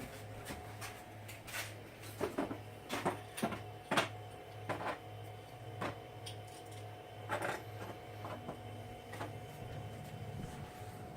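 Irregular knocks and clicks of small objects being handled and set down, a dozen or so spread unevenly, over a steady low hum.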